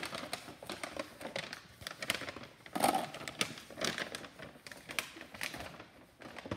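Packaged goods and small cardboard boxes being handled and set into a wire shopping basket: irregular clicks, taps and rustles, busiest about three seconds in.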